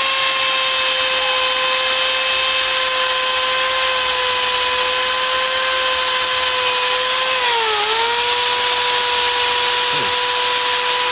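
Electric drill running at a steady speed with a high, even whine, spinning the cylinder-head valves against their seats with lapping paste. Its pitch dips briefly under load about 8 seconds in, then recovers.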